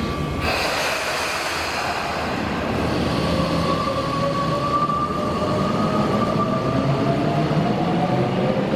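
Hibiya Line subway train moving through the underground station: a steady rumble with electric motor whine, the whine rising in pitch near the end as the train picks up speed.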